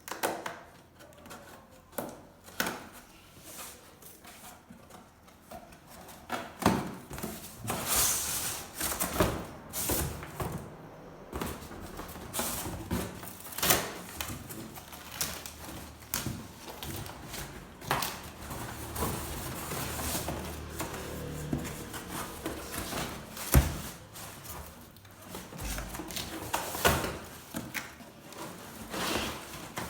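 Packaging being handled and opened by hand: irregular rustling, crinkling and tearing with many small clicks and knocks. A sharp thump about two-thirds of the way through is the loudest sound.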